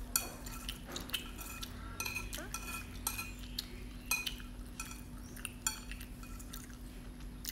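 Chopsticks clinking and scraping against a bowl of instant noodles while eating, in irregular short clicks, a couple a second, some with a brief ring. A faint steady hum runs underneath.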